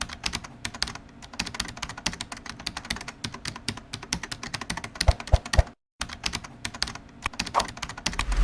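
Rapid, irregular small clicks and taps, like plastic parts clicking or keys being typed, with a few heavier knocks about five seconds in and a brief dropout just after.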